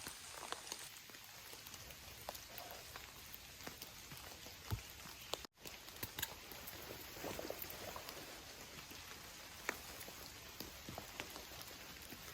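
Steady rain falling, with many individual drops tapping in irregularly. The sound drops out completely for an instant about five and a half seconds in.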